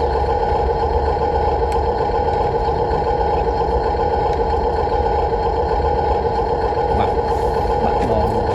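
Radio-controlled model excavator's small electric motors running with a steady, even whine.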